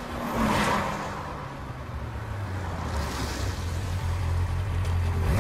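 Motorcycle engine idling, a low steady hum that grows louder toward the end, with a vehicle whooshing past about half a second in.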